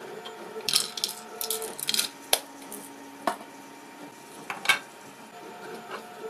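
Small 3D-printed plastic parts and hand tools clicking and knocking on a wooden workbench as they are picked up and set down: a few scattered sharp taps, the loudest about three-quarters of the way through.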